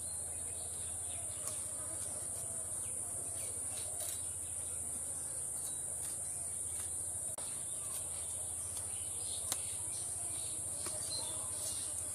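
Steady high-pitched drone of insects. A few faint clicks and scrapes come from a small fish being cut and cleaned on a boti, a curved blade set upright in a wooden base.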